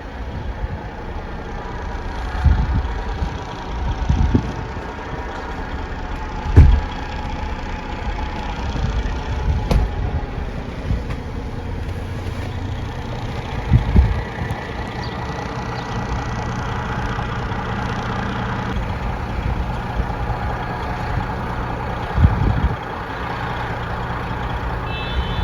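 Truck engine idling steadily, stuck in deep snow, with a few short low thumps breaking in.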